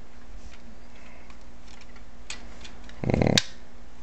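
Hard plastic parts of a large Transformers toy clicking and knocking as they are handled and fitted together, with a louder rustling knock ending in a sharp click about three seconds in.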